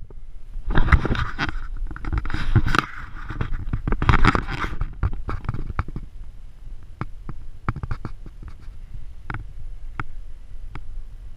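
Handling noise and water splashing against a waterproof action camera held at the water's surface: scraping bursts about a second in and again around four seconds, then scattered small clicks over a low rumble.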